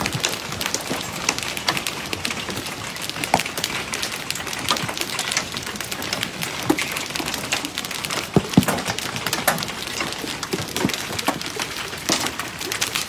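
Hail falling: a steady patter made up of many irregular sharp impacts as hailstones strike the ground, patio and pool water, with a few louder cracks about eight and a half seconds in.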